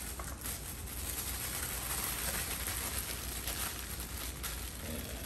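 Clear plastic packaging crinkling now and then as sticker packs are handled, over a steady hiss of heavy rain drumming on a tin roof.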